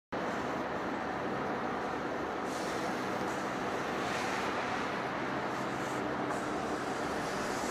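Heavy-duty facing lathe running in a machine shop, giving a steady, even mechanical noise.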